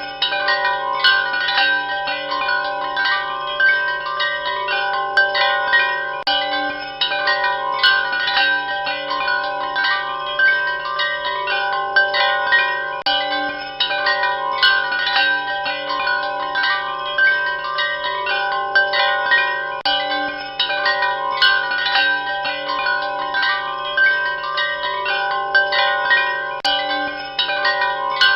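Chime bells ringing continuously, many light, irregular strikes overlapping into a steady wash of sustained, ringing tones.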